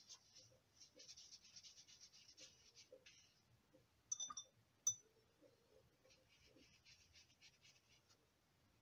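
Faint scratchy strokes of a wet watercolour brush on paper, with two short sharp clinks a little over four seconds in.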